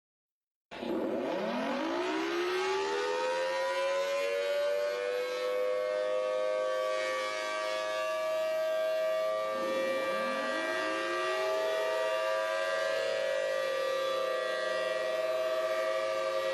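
Civil defense warning sirens winding up from silence under a second in. Several tones rise in pitch and settle into a steady, layered wail. A fresh wind-up rises again about ten seconds in.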